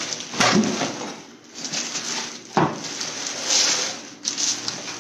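Clear plastic wrapping rustling and crinkling as a plastic rainwater filter is lifted out of its cardboard box and pulled out of its bag, with two sharp knocks, about half a second and two and a half seconds in.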